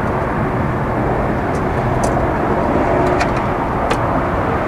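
A steady low rumble and hiss of outdoor vehicle-type noise, with a few faint light clicks as a small screw is fitted into the metal hinge bracket of a tailgate table.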